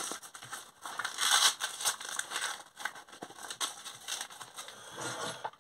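Nylon drop-leg holster rustling and crinkling as it is handled, with irregular scrapes and small clicks.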